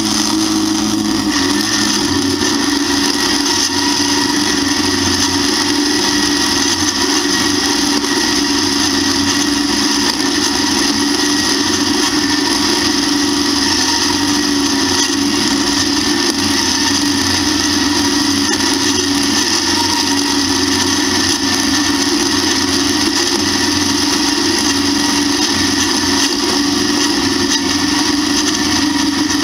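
1952 Allis-Chalmers WD tractor's four-cylinder engine running steadily under load while its two-row mounted corn picker works through standing corn, slightly sped up.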